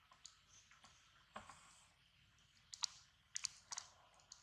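Faint, irregular soft clicks and smacks from long-tailed macaques grooming: lip-smacking and picking through fur. They come more closely together in the second half.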